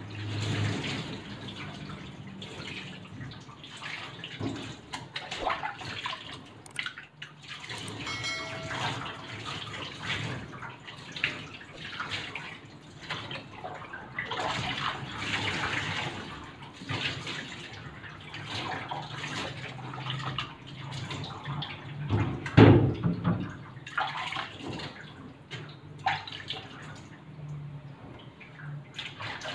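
Water splashing and pouring unevenly over a dog as it is wetted down for a bath, with one louder thump about two-thirds of the way through.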